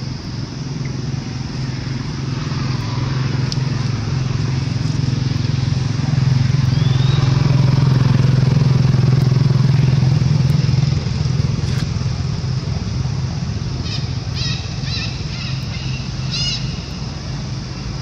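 A motor vehicle's engine running, a steady low hum that builds to its loudest around the middle and then eases off. A few short high chirps come near the end.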